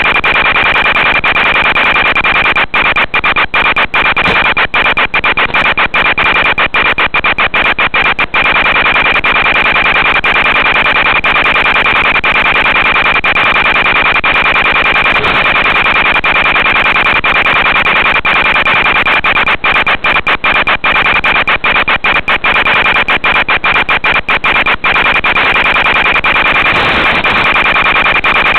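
Loud, steady hiss and buzz with a constant high tone, broken by many brief dropouts: the FPV video link's audio channel as picked up by the ground receiver. It most likely carries the EzOSD telemetry signal that feeds the antenna tracker, and the dropouts are moments of weak signal from the plane.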